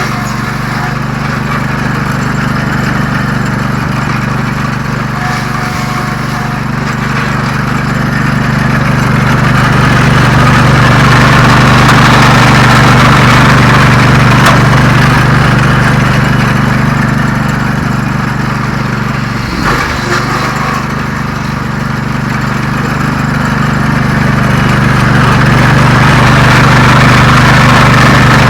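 Lucas sawmill's engine running steadily, with a rushing noise from the flattening disc cutting across a red oak slab that swells louder about ten seconds in and again near the end.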